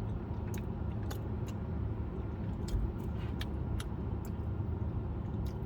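Steady low hum of a car's air conditioning blower and idling engine, heard from inside the cabin, with a few faint clicks.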